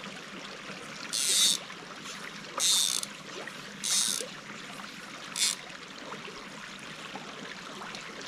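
Creek water running steadily, with four short hissing puffs as floatant is applied to a dry fly to keep it floating.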